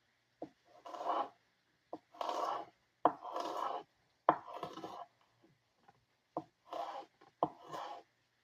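A recurve knife slicing a purple onion on a cutting board with drag cuts: six strokes, each a sharp tap of the blade followed by a rasping slice lasting up to a second.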